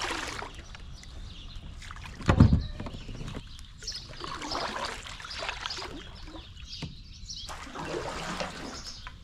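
Kayak paddle strokes: the blades dip and splash, and water trickles off them. There is a loud low thump about two seconds in.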